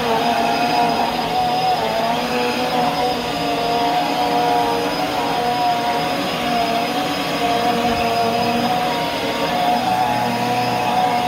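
Bissell bagless upright vacuum cleaner running on carpet, a steady motor whine with a rushing airflow hiss, its pitch wavering slightly as it is pushed back and forth.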